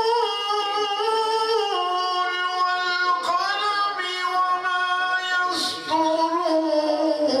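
A solo voice singing long, drawn-out notes that slide between pitches, with short breaths about three seconds in and again near six seconds.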